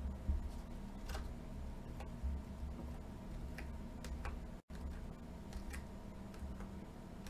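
Stiff glossy Panini Mosaic trading cards being flipped through by hand, making light clicks and slides at irregular intervals of about a second, over a low steady hum. The sound cuts out completely for a split second a little past halfway.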